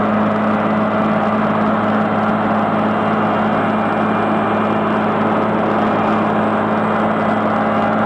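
Caterpillar road reclaimer at work, its diesel engine running steadily under load with a constant deep hum and a dense grinding rush from the rotor mixing the road base.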